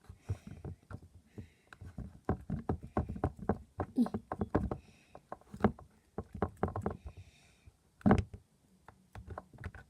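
Very sticky slime being pulled and scraped out of a plastic container by hand, making irregular wet clicks and squelches, with one louder knock about eight seconds in.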